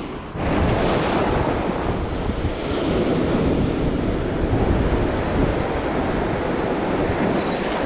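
Sea surf breaking and washing over a rocky boulder shore in a steady rush, with wind buffeting the microphone. There is a brief drop in level at the very start.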